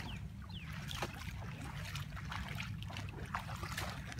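Wind rumbling on the microphone, with light splashing from bare feet wading through shallow water.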